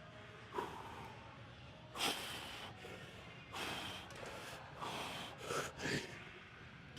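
A man breathing hard, with about six sharp, noisy breaths in and out, the longest about two seconds in and a little past halfway. He is catching his breath in the short rest of a rest-pause set of lat pulldowns.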